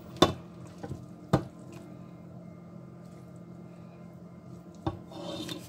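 A serving spoon knocking on the rim of a steel cooking pot as soup is scooped out and served onto a plate, with the wet slop of liquid and vegetables. Two sharp knocks about a second apart near the start, and a softer knock near the end followed by a brief splash.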